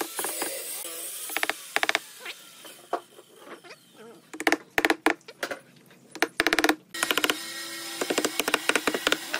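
Wooden mallet tapping small wooden blocks down onto a glued board: quick groups of light knocks with short pauses, turning into a near-continuous run of taps in the last couple of seconds.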